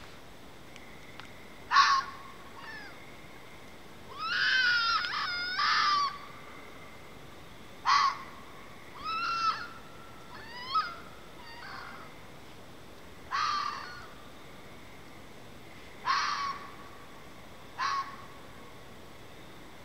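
Red fox calling: a string of short, harsh, high screams and yelps spread irregularly, with a longer run of warbling calls about four to six seconds in.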